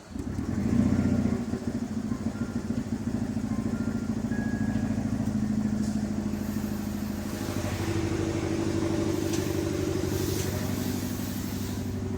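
Turbocharged Fiat petrol engine starting, flaring up for about a second, then idling steadily with a misfire that new spark plugs have not cured.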